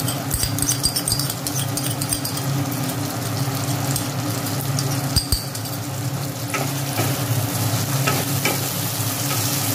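Onion and capsicum frying and sizzling in oil in a non-stick wok as a dark sauce mixture is poured in and stirred with a wooden spatula. Scattered scrapes and taps of the spatula come more often in the last few seconds.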